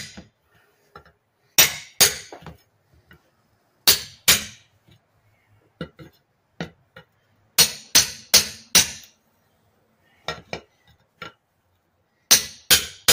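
Hammer striking a flat steel pry bar wedged between a riding lawn mower tire's bead and its steel rim: sharp metal-on-metal clinks in short bursts of two to four blows with pauses between, as the bar is worked around the rim to break the bead loose.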